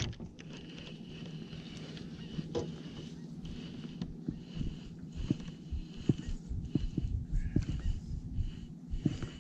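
Okuma baitcasting reel being cranked steadily to bring in a hooked fish: a light whirring that pulses with each turn of the handle, with irregular knocks from handling the rod and reel over a steady low hum.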